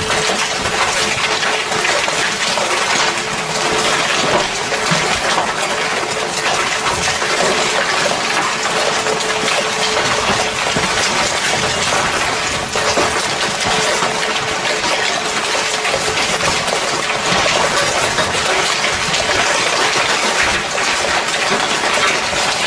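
Hail and heavy rain pelting down, a dense, steady clatter of countless small impacts.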